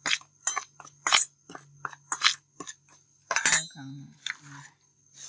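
Metal spoon clinking and scraping against a stainless steel bowl while stirring dry gram flour: a dozen or so irregular clinks, the loudest about three and a half seconds in.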